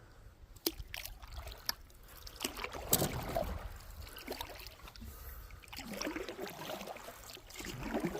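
Canoe paddling: paddle strokes splashing and water dripping and trickling, with a few sharp knocks in the first three seconds.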